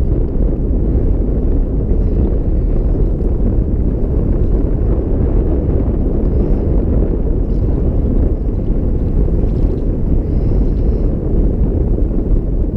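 Wind buffeting the camera microphone: a steady, low rumbling noise.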